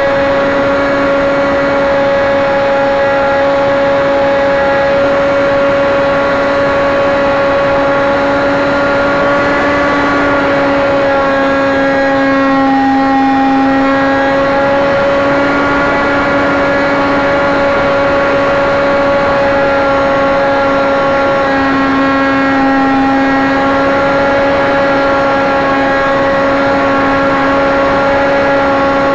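Cox .049 two-stroke glow engine of a model airplane running at full speed in flight: one steady high-pitched drone with overtones, its pitch wavering slightly about halfway through and again later.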